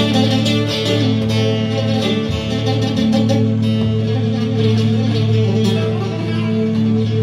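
Music: a plucked string instrument playing over a steady low drone.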